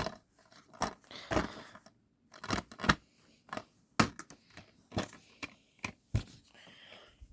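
Irregular sharp clicks and snaps mixed with short scraping and rustling, about a dozen at uneven intervals, like hard objects being handled at close range.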